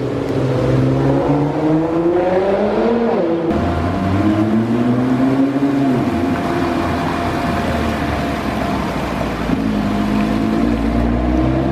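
Nissan GT-R R35 twin-turbo V6 engines accelerating away. One car's engine note rises as it pulls off, then after a sudden cut a second GT-R pulls out with a rising note, holds steadier, and builds again near the end.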